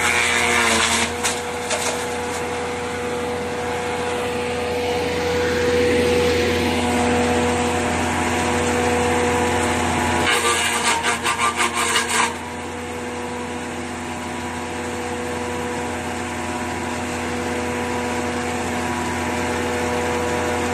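Towable engine-driven wood chipper running steadily, its cutter chewing up fed branches: briefly near the start, then in a louder burst of rapid chopping about ten seconds in that lasts around two seconds.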